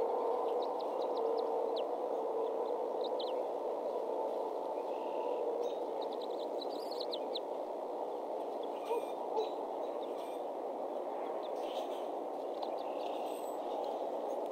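Outdoor ambience at a bald eagle nest: a steady rushing background noise, with brief clusters of high bird chirps about half a second in, around three seconds and around seven seconds. Two soft clicks come about nine seconds in.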